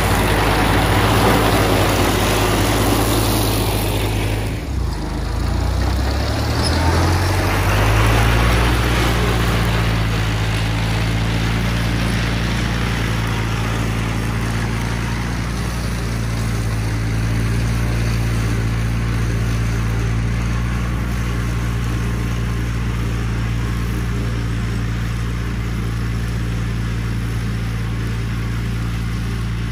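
1960 International Harvester Cub Lo-Boy's four-cylinder engine running steadily under load while mowing in first gear with the mower deck engaged. It is loudest in the first few seconds as the tractor passes close, dips briefly about four and a half seconds in, then holds a steady note that fades a little as the tractor moves away.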